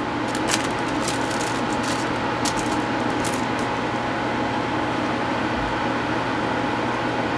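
Steady hiss with a faint low hum, like a fan or air conditioner running, with a few light clicks in the first three seconds.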